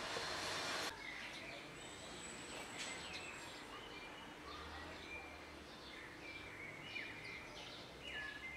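Small birds chirping, with short scattered calls and quick whistled notes throughout. A loud steady rushing noise cuts off suddenly about a second in.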